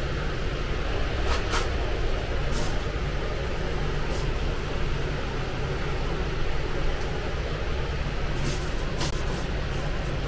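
Steady low hum of a busy restaurant kitchen, with a few short high clicks scattered through.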